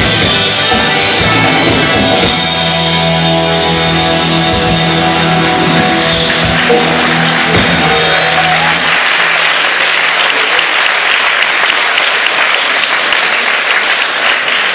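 Live band music with guitar, ending on a long held chord, then audience applause from about nine seconds in.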